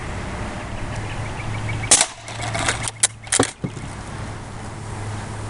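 A single shot from a Umarex Legends Cowboy lever-action CO2 BB rifle about two seconds in. It is followed by a quick run of sharp clicks and clacks over the next second and a half, as the lever is worked to eject the shell and cock the rifle. A low steady hum runs underneath.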